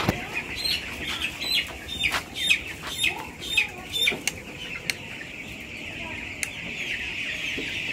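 A large flock of broiler chicks peeping continuously, with a run of sharp clicks and wing flaps through the first half before it settles to steady peeping.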